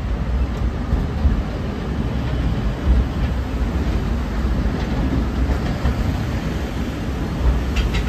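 Narrow-gauge forest railway train running along the track, heard from an open passenger car: a steady low rumble of wheels and car, with a few faint clicks.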